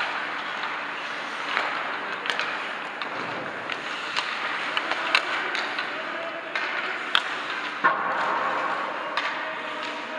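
Hockey skate blades scraping and carving on ice, with several sharp clacks of sticks and pucks.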